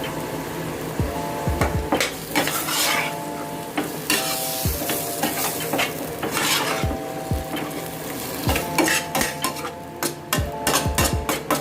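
Food sizzling in a frying pan while a metal utensil stirs it, scraping and clinking against the pan many times.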